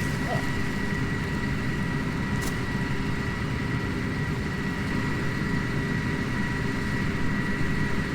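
Combine harvester running steadily during corn harvest, a constant low machinery drone with a steady high-pitched whine over it.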